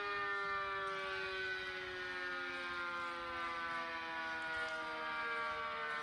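Sentry 40V2T dual-tone civil defense siren sounding, its chord of tones falling slowly and steadily in pitch.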